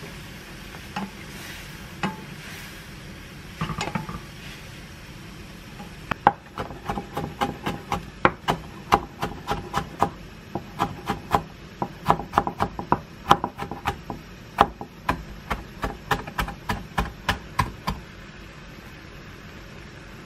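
Kitchen knife chopping pickled yellow radish (danmuji) on a wooden cutting board: quick repeated knocks, about three a second, starting about six seconds in and stopping near the end. Before that, a few scattered knocks from a wooden spatula stirring in a pan.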